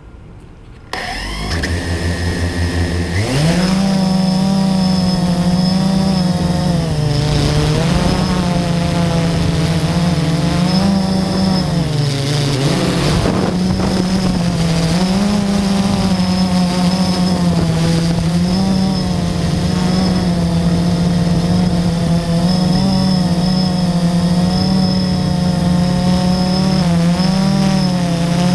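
FPV quadcopter's electric motors spooling up, the pitch rising sharply about three seconds in, then a steady buzz that wavers up and down with the throttle as it flies.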